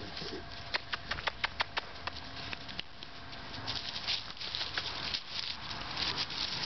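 Staffordshire Bull Terrier puppy scrambling in dry grass and leaves while tugging at its leash: a quick run of sharp crackling clicks about a second in, then steady rustling.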